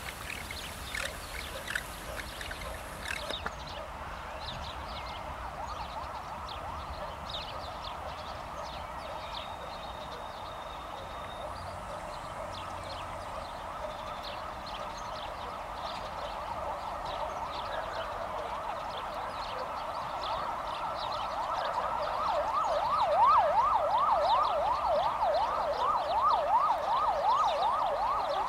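An emergency-vehicle siren wailing, growing louder, then switching to a fast up-and-down yelp in the last several seconds. Short high squeaks sound throughout.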